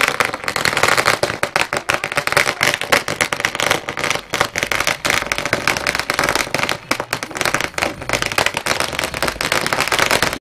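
A long string of firecrackers going off: dense, rapid, irregular cracks with no break.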